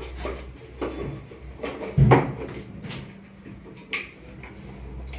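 Sharp clicks and knocks of wires, connectors and meter probes being handled and connected at a repair bench to a bare charger circuit board, the loudest about two seconds in, over a faint low hum.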